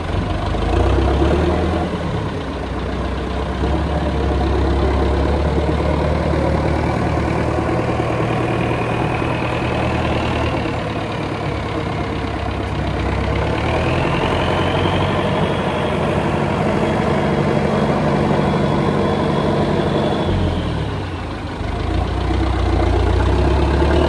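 Massey Ferguson tractor's diesel engine running and working a front loader, scooping and carrying a bucket of muck. A higher whine rises in pitch about halfway through, and the engine eases off briefly near the end before picking up again.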